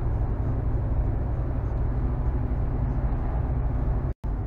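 Large truck running at steady road speed, heard from inside the cab: an even low engine drone with tyre and road noise. The sound cuts out completely for a split second near the end.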